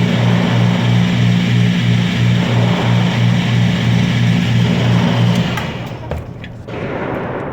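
Electric target carrier on an indoor shooting range running the target back along its track: a steady motor hum with a regular pulse two to three times a second, stopping about five and a half seconds in, with a knock just after.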